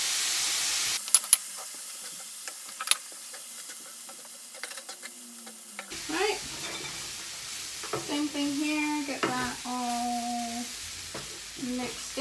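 Soy sauce poured into a hot skillet of browning vegan mince, giving a loud burst of sizzling at the start that settles into steady frying sizzle. A wooden spatula stirs and scrapes the mince, with a few sharp knocks on the pan about a second in. A voice is heard over the stirring in the second half.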